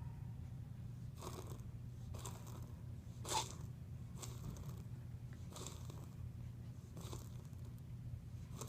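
An animal wheezing: short raspy breaths repeating about once a second, the loudest about three and a half seconds in with a brief squeak to it.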